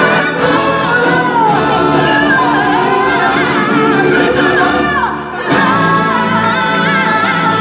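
Live stage-show music: singers with a chorus over backing music. A little after five seconds in the music briefly drops away, then comes back with a long held sung note over steady backing.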